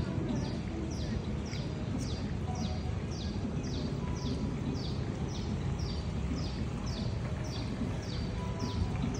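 A bird calling over and over: a short, high, falling chirp about twice a second, keeping an even rhythm. Under it runs a steady low rumble.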